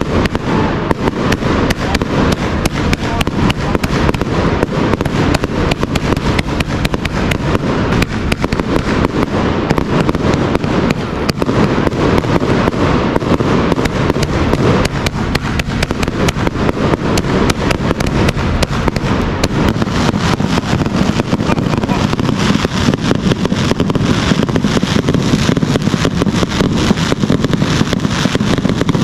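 A close, loud barrage of aerial fireworks: rockets and shells bursting overhead in a continuous rapid crackle of bangs, growing denser in the last third.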